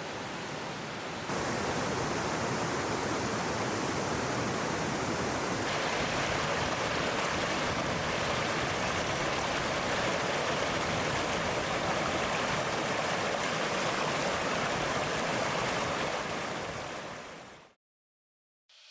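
Mountain valley stream rushing: a steady wash of flowing water that steps up in level about a second in and shifts tone again a few seconds later, then fades out near the end.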